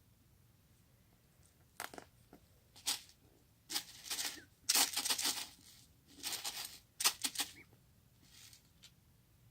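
Slime being squeezed and stretched by hand, giving irregular crackling, squishing bursts with small sharp pops, starting about two seconds in and dying away near the end.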